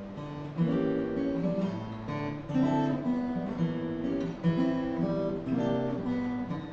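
Acoustic guitar strumming chords in an instrumental song intro.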